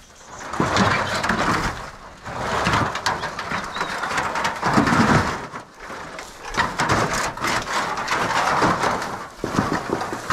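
Rustling, scraping and crunching of dry brush and debris being moved by hand, in about six swells each lasting around a second, with scattered sharp clicks.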